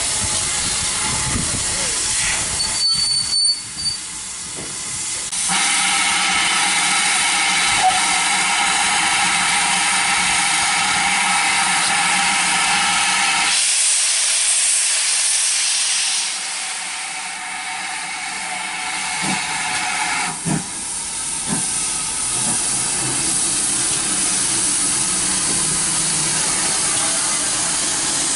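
GWR Manor class 4-6-0 steam locomotive hissing steam, with its cylinder drain cocks venting. From about five seconds in, a steady note sounds over the hiss for roughly eight seconds, then stops suddenly, leaving a thinner, higher hiss.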